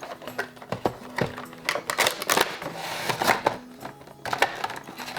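A Funko Pop box and its plastic insert being handled and opened: an irregular run of clicks, knocks and crinkling rustles.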